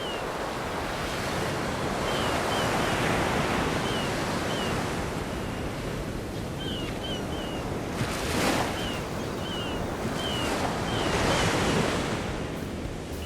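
Sea waves washing onto the shore, the surf swelling several times, with faint repeated short high chirps.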